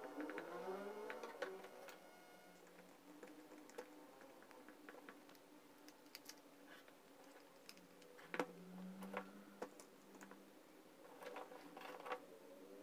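Faint, scattered clicks and taps of the plastic housing of a Makita HG6003 heat gun being handled and fitted back together during reassembly.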